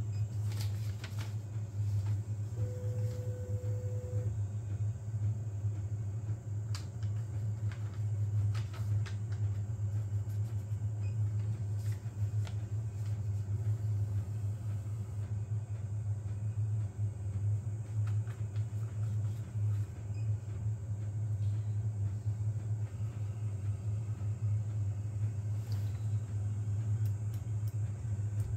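Steady low hum of a powered-on 3D printer's cooling fans, with light clicks and a short steady tone about three seconds in.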